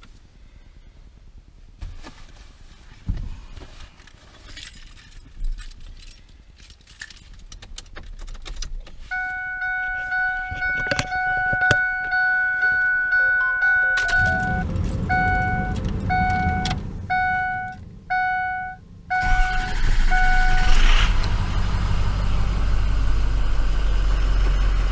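Keys jangling and clicking, then the truck's warning chime sounds steadily and turns into a string of evenly spaced beeps. Under it the Ford F250's 6.0 L Power Stroke diesel cranks and starts about nineteen seconds in, and runs on at a steady idle.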